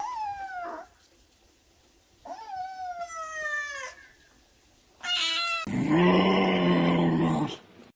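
Animal calls: two high falling cries, the second longer, then a short quick call about five seconds in and a lower drawn-out call near the end.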